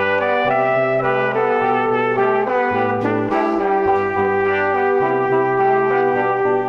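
Background music led by brass instruments, trumpet and trombone, playing sustained melodic notes over a bass line.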